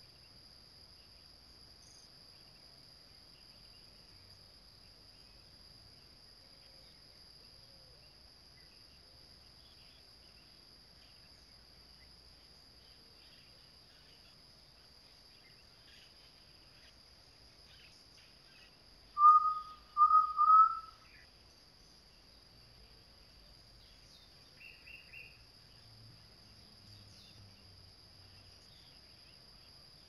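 Jaó (undulated tinamou) giving three short whistled notes about half a second apart, each rising slightly, the last a little longer, over a faint steady high whine. A few faint higher chirps follow a few seconds later.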